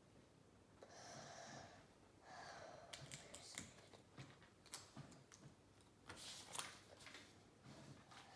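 Faint light plastic clicks and rattles of Lego bricks being picked up and pressed together. They come after two soft breaths through the nose in the first seconds.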